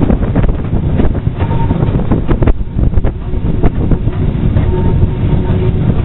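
Short steam-hauled freight train running along the line, heard from an open brake van behind LSWR Beattie 2-4-0 well tank 30587: a steady low rumble of wheels on the track with irregular clicks over the rail joints.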